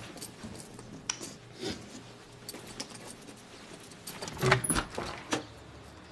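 Irregular clicks and light rattling, with a louder cluster of knocks and rattles about four and a half seconds in.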